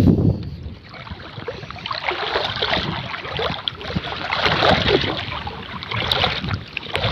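Sea water splashing and churning, with wind buffeting the microphone; a low thump comes right at the start.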